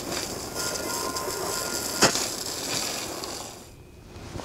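Garden hose jet spraying onto a metal bandsaw frame: a steady hiss and splatter of water, with one sharp knock about two seconds in. The spray dies away near the end.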